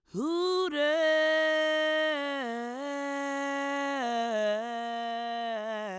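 An announcer's voice drawing out a name in one long held vowel, ring-announcer style. It swoops up at the start, then wavers slightly and steps down in pitch several times.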